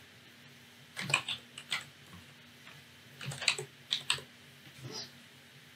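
Typing on a computer keyboard: three short runs of key clicks with pauses between them.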